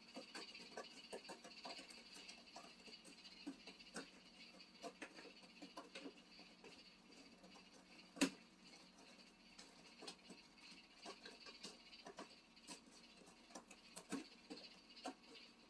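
Faint, irregular small clicks and crackles from a cat at close range, with one sharper click about eight seconds in.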